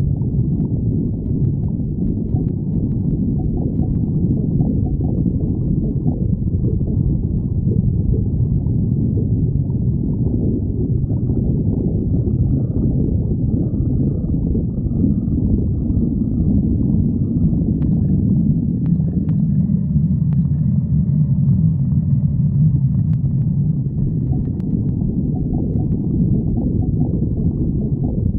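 Human stomach growling: a continuous low, gurgling rumble of the belly, with faint higher-pitched squeaks over the middle stretch.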